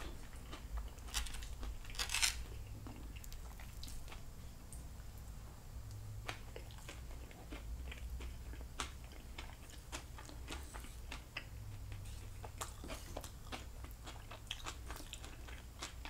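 Close-miked chewing of cooked vegetables and chicken, with many scattered soft clicks and taps and a brief louder noise about two seconds in.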